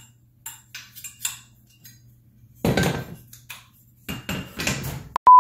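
AR-15 pistol parts being handled and set down on a workbench: scattered light clinks, a louder clatter about two and a half seconds in, and more rattling near the end. A loud steady beep tone starts at the very end.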